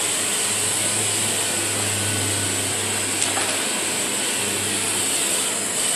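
Upright vacuum cleaner running steadily, with one short click about three seconds in.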